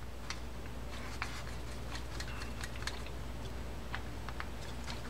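Screwdriver turning the side-plate screws of a Garcia Mitchell 624 saltwater reel down tight, giving faint, irregular small clicks of metal on metal.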